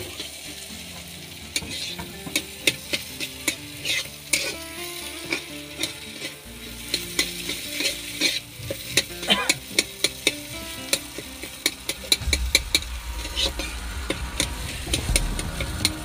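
A metal spatula scrapes and clacks against a black wok while potatoes are stirred and mashed, with hot oil sizzling under it. The sharp clicks come irregularly throughout, and a low rumble comes in near the end.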